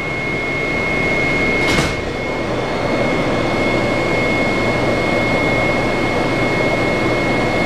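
Washington Metro 7000-series railcar's doors sliding shut with a single bang about two seconds in. The car's equipment hums steadily with a constant high whine.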